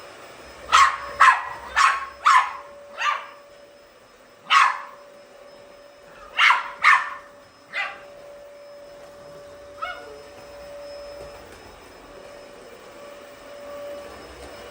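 A dog barking at a vacuum cleaner in short, sharp barks: five quick ones in the first three seconds, another about four and a half seconds in, three more around six to eight seconds, and one faint last bark near ten seconds. A faint steady hum runs underneath.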